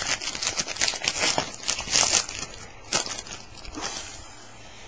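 An empty foil trading-card pack wrapper being crumpled by hand: a dense, crackly crinkling for about three seconds, a few last crackles, then it stops.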